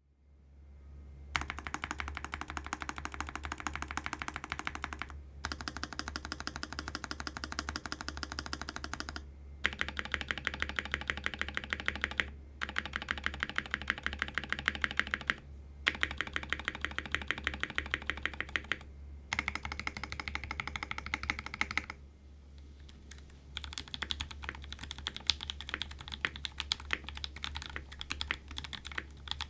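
Mechanical keyboard with lubed 43 Studio Obsidian Pro v2 linear switches in an aluminium-plate Rune & Smith Iron165 and GMK keycaps. For about twenty seconds its stabilized keys, fitted with lubed Staebies stabilizers, are pressed rapidly over and over in separate runs. After a short pause, about 23 seconds in, ordinary typing on the board follows.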